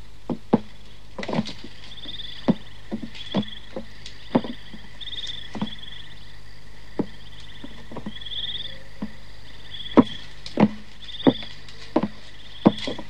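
Scattered sharp knocks and taps at irregular intervals, the loudest about ten seconds in, over a steady low hum. Short high trilling chirps repeat about once a second.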